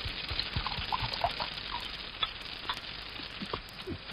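Soft, irregular clicking with faint short squeaks over a steady hiss.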